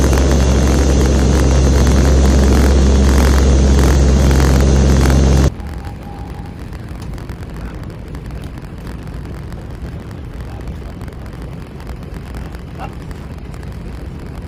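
Loud, steady cabin drone inside a C-130 Hercules transport in flight, its four Allison T56 turboprop engines humming with strong low tones. About five and a half seconds in it cuts off suddenly to a much quieter, steady outdoor background noise.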